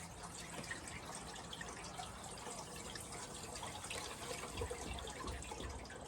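Water from a hose running into a sawmill's water tank as it fills: a faint, steady trickle with small drip-like ticks.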